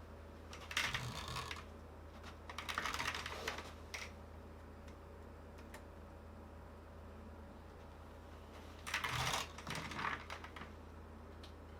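Light clicking and scraping of small tools and wires being handled while battery wires are soldered to a PS5 DualSense controller board. It comes in four short clusters with quiet gaps between them, over a faint steady hum.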